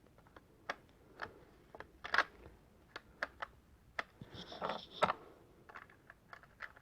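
Plastic Lego bricks clicking and rattling as they are handled and pressed together, in faint, irregular small clicks, with a brief rustle about four and a half seconds in.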